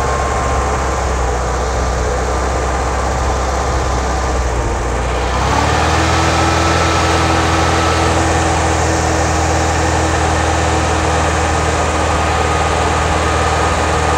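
Air-cooled flat-four engine of a 1958 Porsche 356A with twin Zenith carburetors, running steadily at a raised speed of about 2,500 rpm set by the dash hand throttle. About five and a half seconds in, its pitch rises slightly and it runs a little louder, then holds steady.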